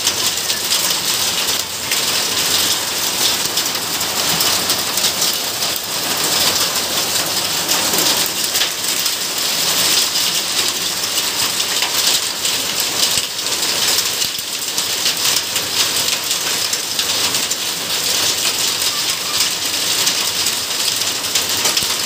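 Heavy rain mixed with hailstones falling on a paved yard: a dense, steady hiss of countless small impacts.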